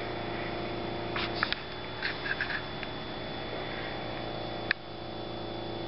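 Steady electrical hum in a small room, with a few faint taps about one and two seconds in and a single sharp click near the end.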